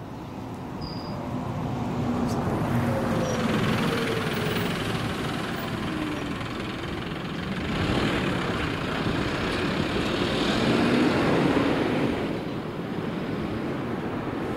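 Bus driving past and away over a rail level crossing; the engine note slides up and down in pitch, and the noise swells twice before fading.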